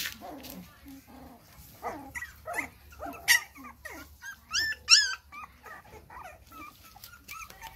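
Young puppy whimpering in a string of short, high-pitched cries, the loudest two about four and a half and five seconds in.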